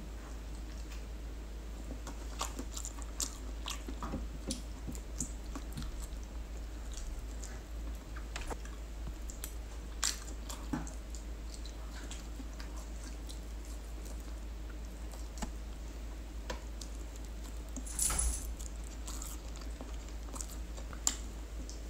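Close-up chewing of roast turkey leg meat, with many small scattered clicks. Late on there is a brief, louder clatter.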